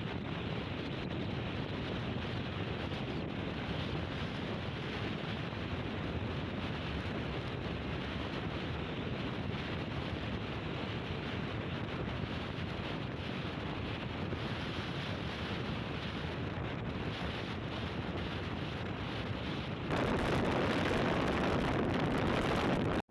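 Strong wind blowing steadily, with wind buffeting the microphone. About 20 seconds in it turns louder and harsher for about three seconds, then cuts off abruptly.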